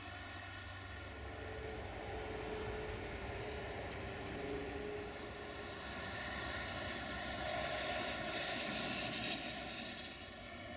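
Steady drone of a distant diesel locomotive engine, swelling a little past the middle and easing off near the end.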